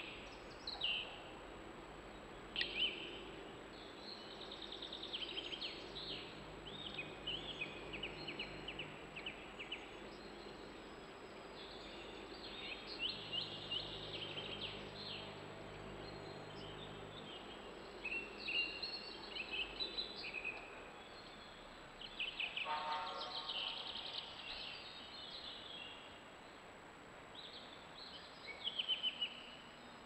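Songbirds singing, with many short, overlapping phrases of rapid repeated high notes throughout. A little past the middle, one lower, harsher call stands out among them.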